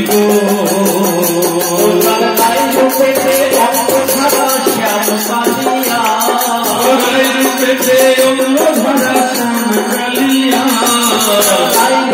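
Bengali devotional kirtan: men singing a chant into microphones over a sound system, with a steady beat of shaken, jingling hand percussion.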